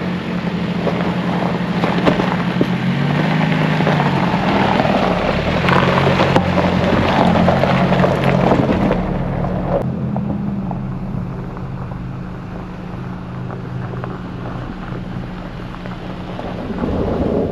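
Off-road truck engine running steadily under a broad rough driving noise, with wind on the microphone; the engine pitch rises briefly about three seconds in, and the rough noise drops away about nine seconds in, leaving the engine's steady hum.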